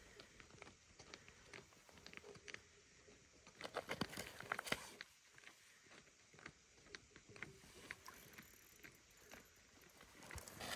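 Faint scattered clicks, taps and rustles of a person handling ice-fishing gear while kneeling on the ice, with a brief burst of louder clicks about four seconds in.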